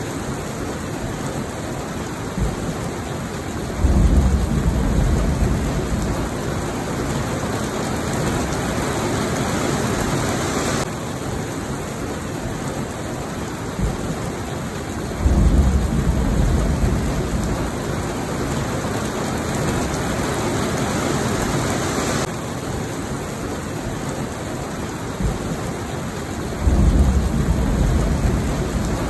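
Steady heavy rain falling, with a low roll of thunder that swells in three times, about every eleven seconds.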